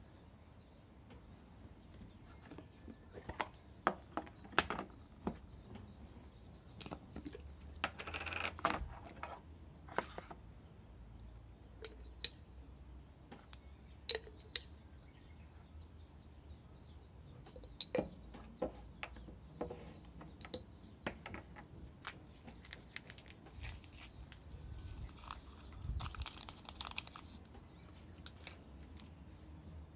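Scattered sharp clicks and light clinks of a glass instant-coffee jar, a metal spoon and a plastic food container being handled, with a few short rustling pours of coffee granules and sugar into the container.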